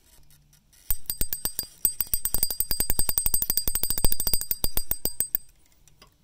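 Fishing reel drag clicking fast as the line is pulled out against it by an alligator that has taken the hooked fish. A quick, ringing ratchet of clicks starts about a second in, runs densest through the middle and stops shortly before the end.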